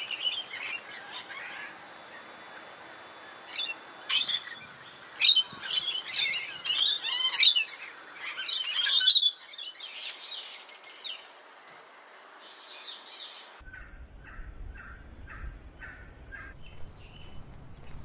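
Rainbow lorikeets screeching in harsh, shrill bursts through the first half, then fainter bird calls. About three-quarters through, the sound changes to a steady high whine with a quick row of short chirps.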